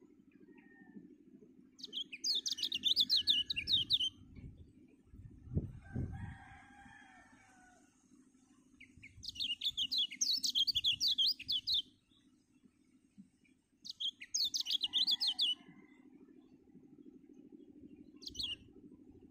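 A kecial kuning (white-eye) singing in bursts of rapid, falling high chirps: three phrases of two to three seconds each and a short one near the end, the kind of song used as a pancingan to set other birds singing. About six seconds in there is a low thump and a lower, longer call from another bird.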